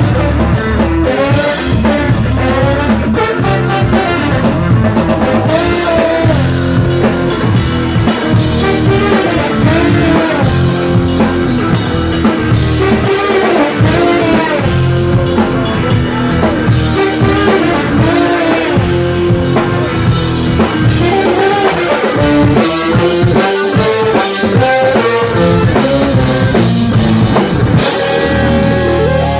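Live band music: a trombone playing a sliding lead line over a drum kit and bass, amplified through the PA.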